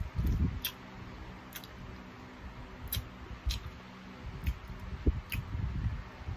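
Close-up mouth sounds of someone eating chicken feet: wet chewing and nibbling at the skin and small bones, with sharp clicks every second or so.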